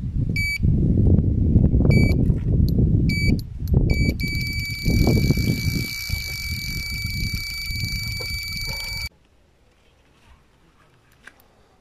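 Carp bite alarm on a rod pod giving a few single beeps, then a fast, unbroken run of beeps for about five seconds as a fish takes line. A heavy low rumbling noise on the microphone runs under it, and both cut off suddenly about nine seconds in.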